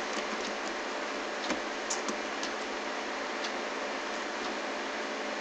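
Steady hiss of background microphone noise with a few faint, scattered clicks from a computer mouse as its scroll wheel moves a document down.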